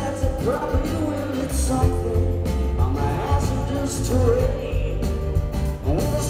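Live rock band playing, with a male lead vocal over acoustic guitar, bass and drums, recorded from within the audience.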